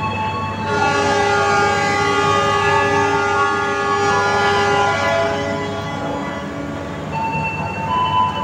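Locomotive horn giving one long chord-like blast of about five seconds, starting about a second in, as the train is given the departure signal. Thinner tones that change pitch come and go near the end.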